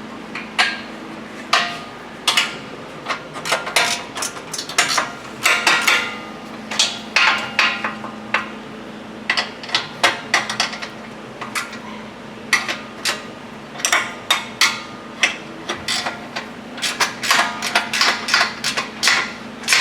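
Wrenches clicking and clinking on a steel bolt and nut as the roller-fairlead mounting bolt is tightened. The sharp metallic clicks come irregularly, some in quick runs.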